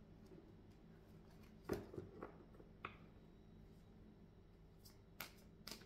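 Tarot cards being pulled from the deck and set down: a handful of short, soft taps and flicks, the loudest about two seconds in, with two more near the end.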